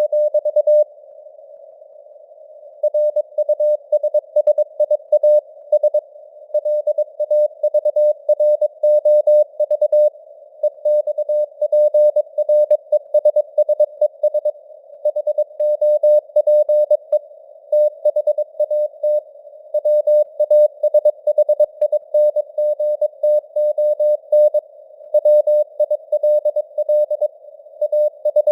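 Morse code (CW) sent at 22 words per minute as a single mid-pitched beeping tone keyed in dots and dashes, over a soft hiss of simulated radio band noise that fills the gaps. About a second in, the keying stops for roughly two seconds, leaving only the hiss.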